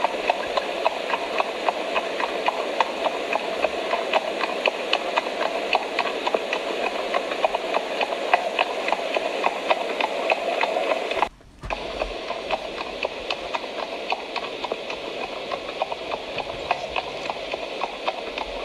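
Horse hoofbeats at a trot in a steady clip-clop rhythm, a recorded sound effect laid over toy-horse footage. It breaks off for a moment about eleven seconds in, then picks up again.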